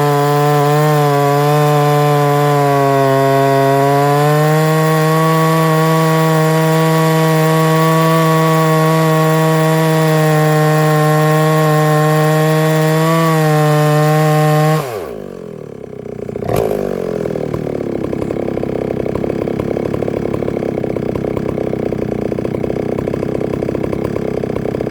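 Solo 670 two-stroke chainsaw with a 42-inch bar running at full throttle through a hard, dry hardwood log, its pitch sagging briefly under load. About 15 seconds in, the throttle is let off and the engine note drops away; the saw then settles into a rhythmic idle.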